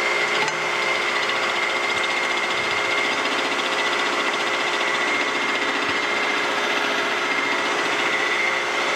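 Vertical milling machine running, its end mill taking a cut of about twenty-five thousandths of an inch along the edge of an angle-iron bar as the power feed moves the table. The cutting makes a steady sound with a high tone over it.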